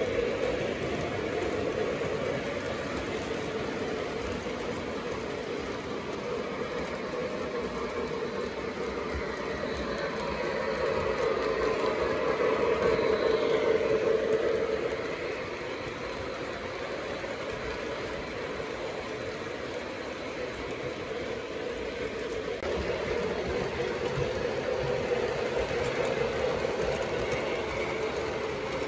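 O gauge model steam locomotive pulling passenger cars along three-rail track: a steady running hum and wheel noise. It grows louder about midway as the cars pass close, then drops back.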